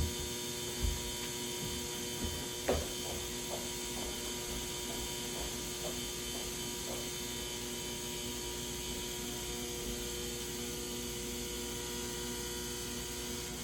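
Steady electrical hum and whine made of many fixed tones, unchanging throughout, with a few soft knocks in the first three seconds.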